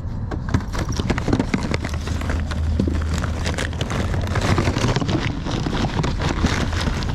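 Rummaging through a tool bag: tools and parts knocking and clattering irregularly, over a steady low hum.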